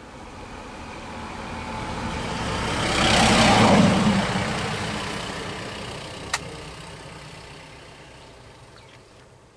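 A motor vehicle driving past close by, its engine and tyre noise growing louder to a peak a few seconds in, then fading away. A single sharp click about six seconds in.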